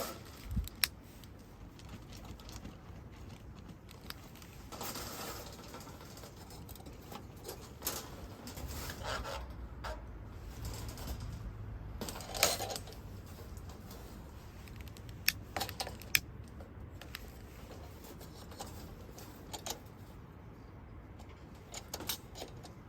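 Sporadic light clicks, clinks and brief rustles of small objects being handled, over a faint low rumble.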